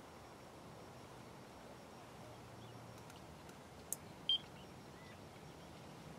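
Faint steady outdoor hush, broken just before four seconds in by a click and then a single short high-pitched bleep from a carp bite alarm as the line on the rod is handled.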